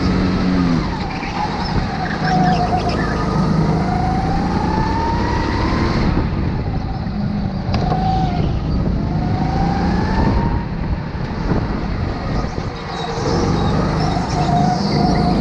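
Go-kart engine heard from onboard, its pitch rising again and again as it accelerates along the straights and dropping back off the throttle into the corners, over a steady low rumble.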